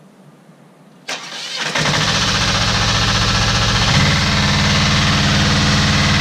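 Portable fire pump's engine starting: a brief crank about a second in, then it catches and runs steadily, a touch faster from about four seconds in.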